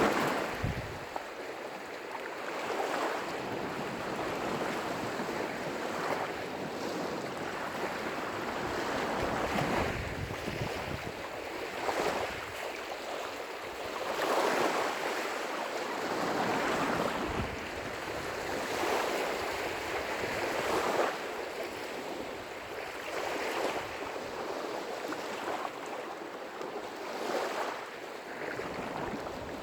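Small lake waves breaking and washing on the shore, surging every two to three seconds, with a few brief low rumbles of wind on the microphone.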